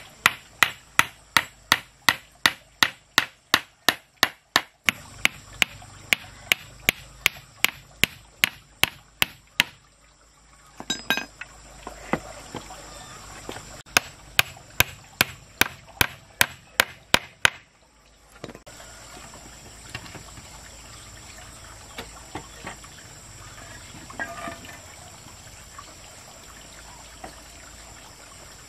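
Rapid, evenly spaced blows of a hand tool, about three to four a second, in two runs with a break about ten seconds in. After about eighteen seconds the blows stop, leaving a quieter steady hiss with a few faint knocks.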